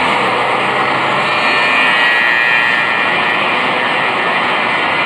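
Loud, steady roar of vehicle noise on a city street.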